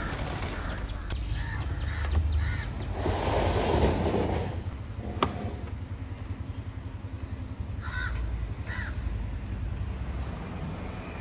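Short bird calls like crows cawing, a few in quick succession in the first three seconds and two more about eight seconds in, over a steady low hum. About three seconds in, a louder rush of noise lasts roughly a second and a half.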